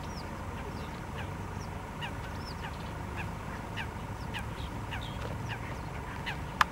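Wetland birds calling in the background: many short, high chirps that slide downward, a few each second, over a steady low rumble and a faint steady hum. A sharp click comes near the end.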